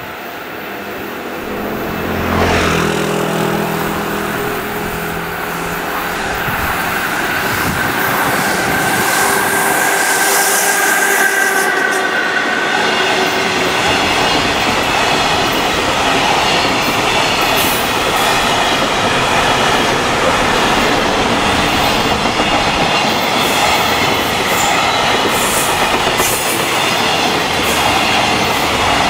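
JR Freight EF66 electric locomotive passing about two seconds in, with a low hum. It is followed by a long train of container flatcars rolling past, a steady rumble of wheels on rail with clicking over the rail joints.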